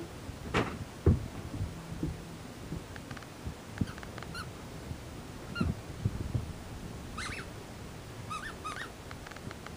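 Australian shepherd puppy giving short, high-pitched whines and yips, singly and in small clusters, while playing fetch. A few dull thumps come in between, the loudest about a second in.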